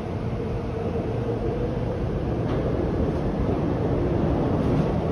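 Shinbundang Line subway train running at speed, heard from inside the car: a steady rumble of wheels and running gear with a faint steady hum. It grows gradually louder.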